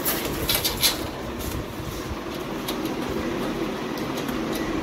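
Light clicks and rattles of a kitchen chimney hood's metal grille and panel being handled, clustered in the first second with a few more later, over a steady background hum.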